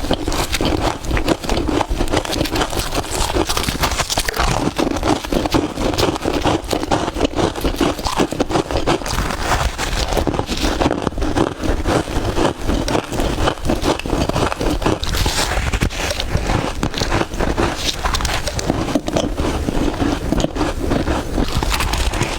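Close-miked crunching of soft freezer frost being bitten: a dense, continuous run of crackly crunches.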